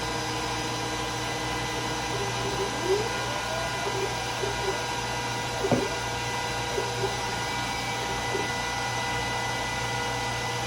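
Glowforge Plus laser cutter running a cut: a steady whir from its fans, with short rising and falling motor whines as the head moves, and a sharp tick about six seconds in.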